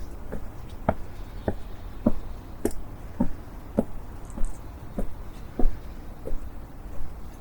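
Footsteps of a person walking at an even pace, a little under two steps a second, each step a short knock.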